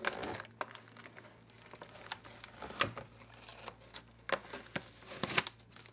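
Hands handling a thin, stiff plastic RC truck body shell and the masking paper tucked inside it: scattered light clicks, taps and crinkles, over a faint steady hum.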